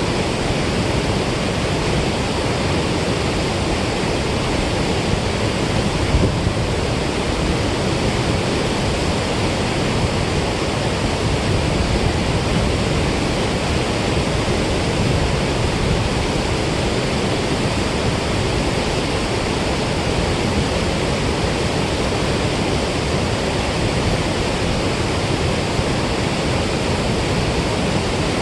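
Steady rush of water pouring out of a dam spillway.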